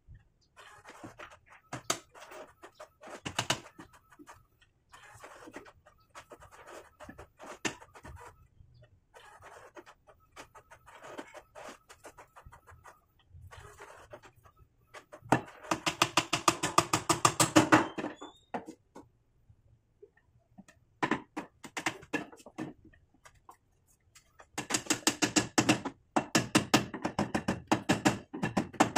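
Steel claw hammer driving nails into a wooden frame: a few single knocks, then two runs of quick blows, the first about halfway through and the second near the end.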